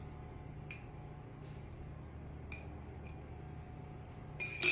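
Light clinks of a glass jar and a metal spoon over a steady low hum, with a few faint clicks and a sharper clink near the end.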